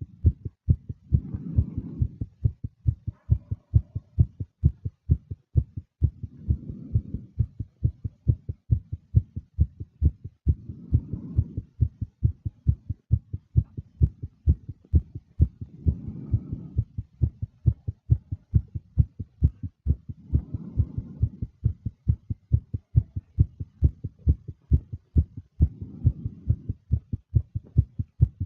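Fast heartbeat: a steady run of low, closely spaced thumps. A breath swells over it about every five seconds, six times in all.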